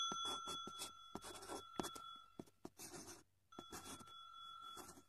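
Faint marker-scribbling sound effect: quick scratchy strokes like a felt-tip marker drawing. A ringing chime tone fades out under the strokes during the first half, and a second, fainter tone sounds near the end.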